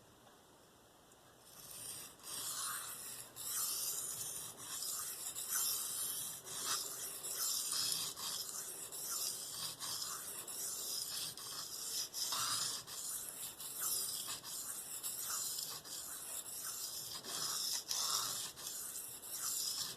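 Steel knife blade stroked repeatedly across a Venev resin-bonded diamond sharpening stone, a rasping scrape in a quick series of strokes, starting about a second and a half in.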